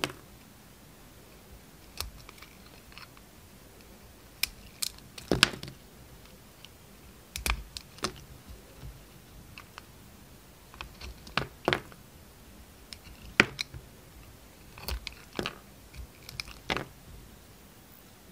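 Snap-off utility knife blade cutting through a hard bar of soap, shaving off its outer layer in about a dozen sharp, crisp crunching cuts at irregular intervals, some in quick pairs, with quiet pauses between.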